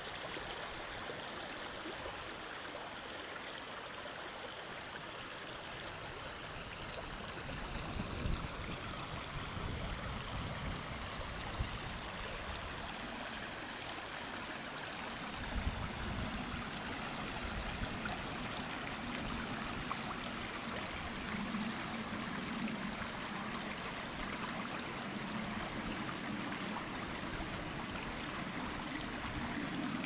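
Small forest brook running over rocks and stones in shallow riffles: a steady rushing and gurgling of water. A low rumble comes in about halfway through.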